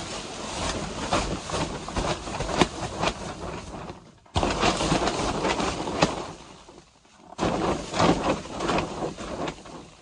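Snow sliding off a canopy tent's fabric roof as it is pushed up from beneath with a long-handled brush. It comes in three long noisy rushes with many sharp knocks.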